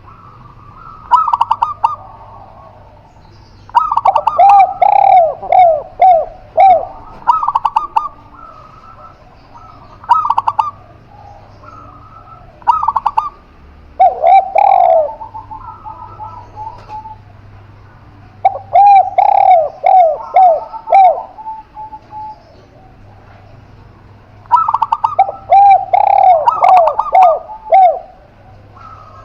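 Spotted dove (tekukur) and zebra dove (perkutut) cooing in bouts every few seconds. Some bouts are a run of five or six quick falling notes.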